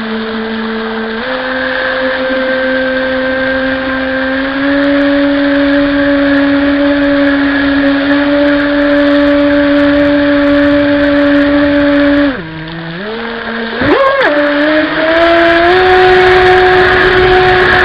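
Radio-controlled jet boat's motor and water-jet drive whining steadily under way, heard from on board. The pitch steps up a little in the first couple of seconds and holds. Around twelve seconds in it dips sharply, then climbs back and holds higher.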